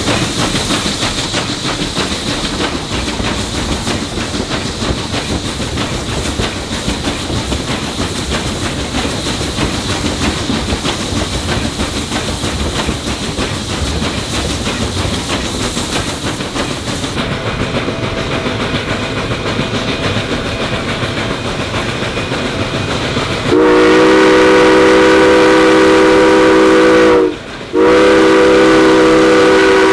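Narrow-gauge steam locomotive running along the rails, a steady rush of running noise with wheel-on-rail clatter. About 23 seconds in its steam whistle sounds, loud, with several notes at once: a long blast, a brief break, then another blast held on.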